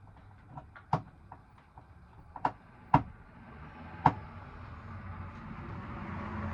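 Several sharp knocks and clicks, the loudest about three and four seconds in, followed by a steady noise that slowly swells toward the end.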